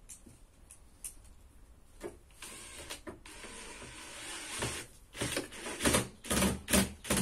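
Scraping and rubbing from about two seconds in, then a run of loud knocks and thumps as the sheet-metal appliance housing is handled and worked on during disassembly, the loudest near the end.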